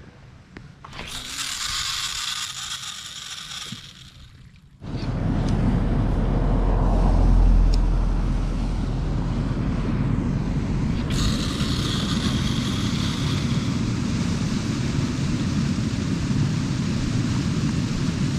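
Wind buffeting the microphone on an open shoreline, starting suddenly about five seconds in and then holding steady, with waves washing against the rocky bank. Before that: faint handling clicks and a short hissing rustle.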